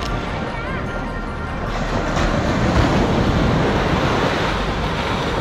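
Surf washing up on a sandy beach: a steady rush of noise that grows louder about two seconds in.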